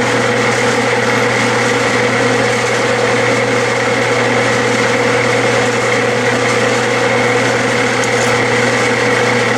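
Clausing metal lathe running under power during a single-point threading pass with a carbide threading tool. It makes a steady roar of belts and gears with a constant motor whine.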